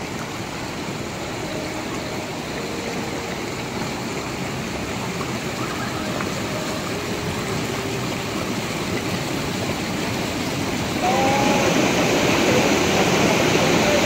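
Mountain stream rushing and splashing over rocks at the foot of a small waterfall: a steady rush of water that grows louder about eleven seconds in.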